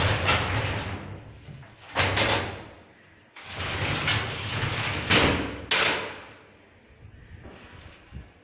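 Aluminium-framed cabinet doors being worked open and shut. There are two long runs of sliding, rattling noise, each ending in sharp knocks as a door closes: one knock about two seconds in, and a double knock a little past halfway.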